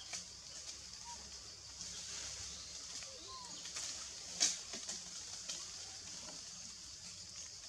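Forest ambience: a steady high-pitched hiss with a few faint, short bird chirps, and one sharp click about halfway through.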